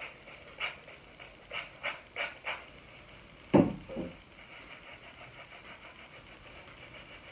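Hand-held trigger spray bottle of diluted shampoo squirting onto the scalp in short hisses, five quick sprays in the first two and a half seconds. About three and a half seconds in comes a louder, lower sound in two parts.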